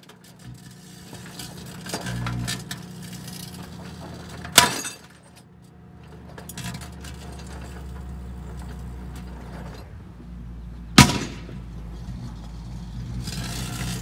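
Two sharp pops, about 4.6 s and 11 s in, the second the louder, each with a short ring: live .22 rimfire cartridges cooking off inside a running microwave oven, their bullets and casings rattling against the glass turntable plate, over the oven's steady low hum.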